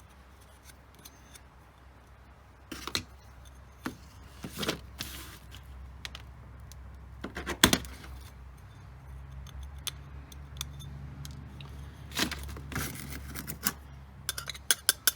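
Small metal hard-drive parts being handled and set down on a work surface: scattered light clinks and clicks, one sharper knock about halfway through and a quick run of clicks near the end.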